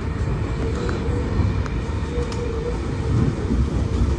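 V set intercity electric train running along the line, heard from an open window of one of its carriages: a steady, loud rumble of wheels on rails mixed with rushing air, with a faint steady hum and a few light clicks.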